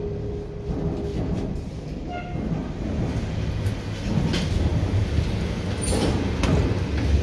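Low, steady rumble as a hydraulic elevator car comes to a stop and its glass doors slide open. A few sharp clicks and knocks follow in the second half, with footsteps as passengers step out.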